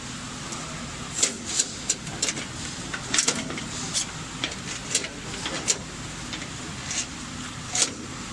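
Plastic tubing and cables rustling and scraping against a plastic cable drag chain as they are pushed through by hand, in short irregular scrapes over a steady low hum.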